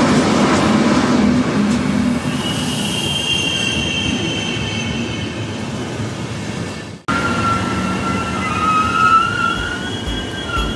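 Running noise of a passenger train heard from inside the carriage, with high-pitched steel wheel squeal against the rails. The sound breaks off for an instant about seven seconds in and carries on with another wavering squeal.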